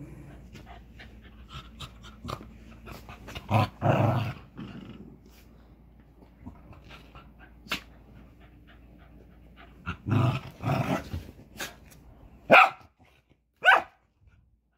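A West Highland white terrier puppy and a cairn terrier growling in short bouts of play, a few seconds in and again about ten seconds in. Near the end come two loud, sharp barks about a second apart.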